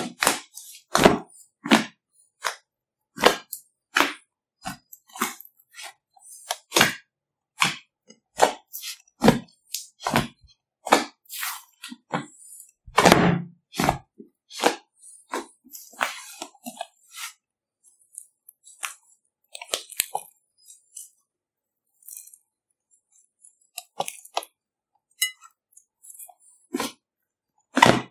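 Fluffy slime squeezed and kneaded by hand in a glass bowl, giving irregular sharp crackling pops and squelches as trapped air bursts. There is a lull of a few seconds a little past the middle.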